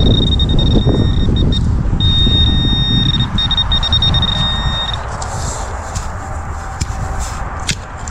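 A metal detector's steady high-pitched tone, sounding with short breaks and stopping about five seconds in, over low rumbling handling noise.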